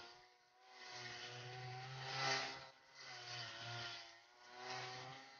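Brush cutter's small engine running under load while its spinning blade cuts through dense weeds, the engine note and the hiss of cutting swelling and falling with each sweep, loudest about two seconds in.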